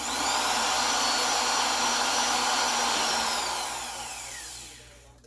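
A small electric power tool's motor spinning up, running steadily for about three seconds, then released and spinning down with a falling whine.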